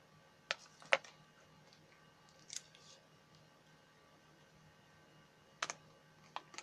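Scattered sharp clicks and taps from hands handling a smartphone and its packaging: two about half a second to a second in, a short rustle about two and a half seconds in, and a few more clicks near the end.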